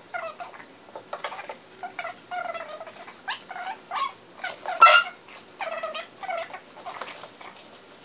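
Baby fussing: a string of short, high-pitched whimpers and squeals, the loudest about five seconds in.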